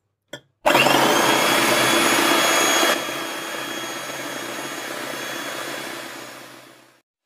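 A click, then an electric hand mixer starts, its motor whining up to speed and whirring steadily as the beaters whip raw eggs in a bowl. A little over two seconds in, the sound drops to a quieter level, and it fades out near the end.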